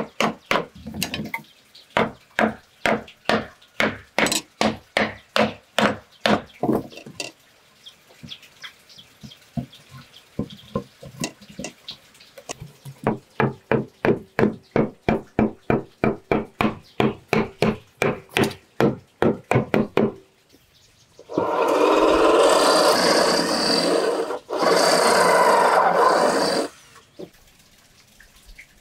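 Machete chopping into a wooden log post, sharp strikes about two a second, then fewer strikes for a few seconds. A wooden mallet then knocks a board against the post in quick, even knocks, about two or three a second. Near the end a loud rough noise runs for about five seconds, broken once briefly.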